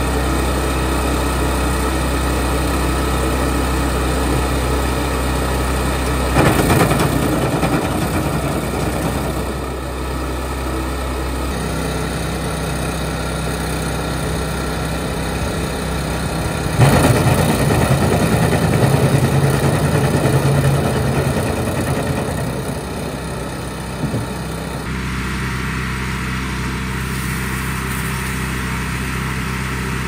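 The petrol engine of an Arpal trailer-mounted wood chipper runs steadily. It grows louder and rougher twice, about six seconds in and again around seventeen seconds in, as branches are fed through and chipped.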